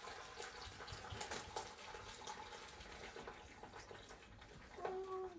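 Red wine being poured from a bottle into a shallow pan around a lamb joint: a faint, steady trickle of liquid.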